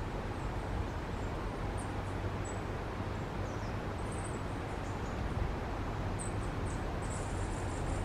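Steady rushing outdoor background noise, with faint, short, high thin chirps now and then and a longer high buzzy note near the end.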